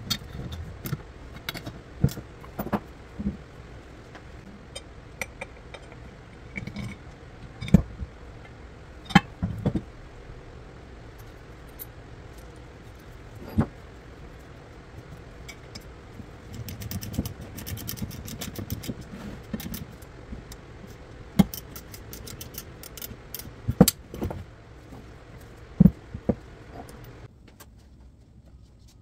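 Irregular metallic clinks, knocks and jangling, like metal parts and hand tools being handled, set down and knocked together during reassembly work. A steady background noise under them cuts off suddenly near the end.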